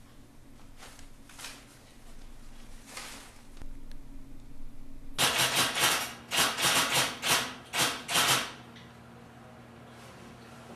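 Typewriter keys striking: a few faint taps, then a quick burst of keystrokes a little past the middle followed by several single strokes, over a low steady hum.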